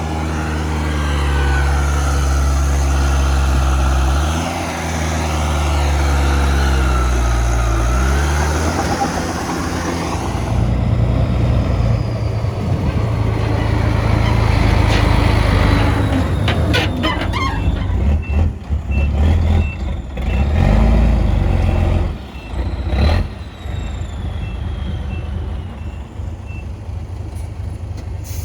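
Heavy diesel earthmoving machinery working: an engine runs and revs up and down for the first ten seconds, then gives way to rougher working noise with several sharp knocks. A reversing beeper sounds repeatedly in the later part.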